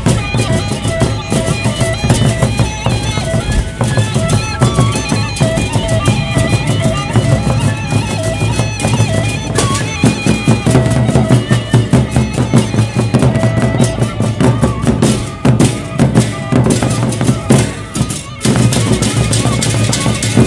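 Sasak gendang beleq ensemble playing: large barrel drums beaten in a dense, fast rhythm under ringing metal gongs and cymbals.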